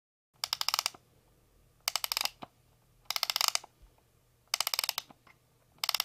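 Mechanical ratcheting clicks: five short bursts of rapid clicking, about one every second and a half, over a faint low hum.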